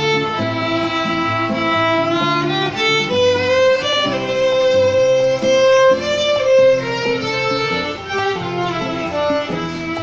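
Violin played with the bow, a slow melody with one long held note from about three seconds in to nearly seven seconds. A lower-pitched accompaniment of steady chords sounds underneath.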